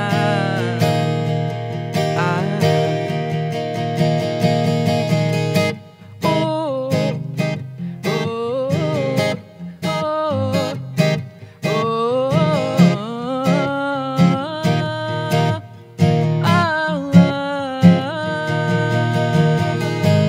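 A woman singing over strummed acoustic guitar. From about six seconds in, her voice glides up and down through melodic runs, in phrases with short breaks between them.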